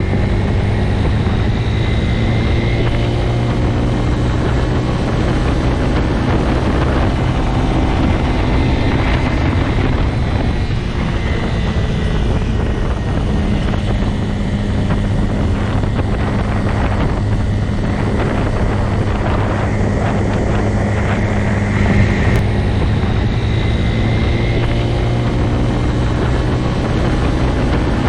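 Motorcycle engine running at a steady, even pitch, with no revving up or down.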